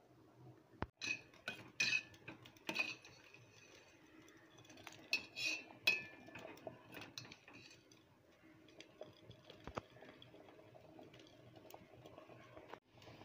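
A steel ladle knocking and scraping against a metal pot of boiling rice as it is stirred. Two clusters of ringing clinks come, one about a second in and one around five to six seconds in, with a few lighter taps later.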